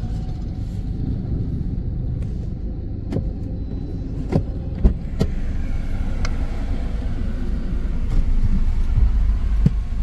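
Low, steady vehicle rumble with a few sharp clicks and knocks.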